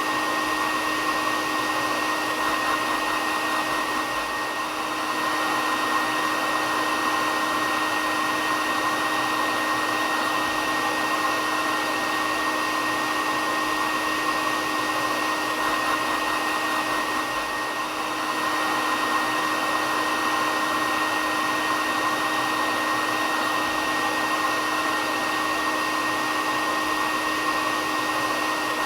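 Hair dryer running steadily: a continuous rush of air with a steady motor whine over it, dipping slightly twice.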